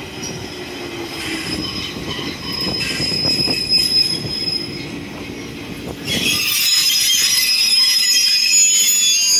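Toyama Chihō Railway 14760-series electric train pulling into the station and slowing, with a low hum that falls slightly in pitch. A high-pitched squeal from the wheels and brakes grows much louder about six seconds in as it brakes toward a stop.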